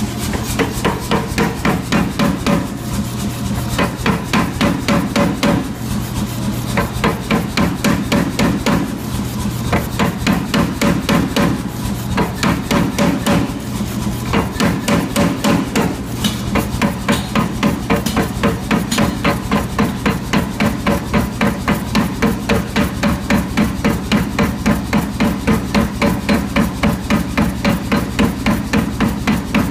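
Power hammer repeatedly striking a red-hot billet in ball-forming dies, forging it round, at about three blows a second with short pauses every few seconds. A steady low hum runs underneath.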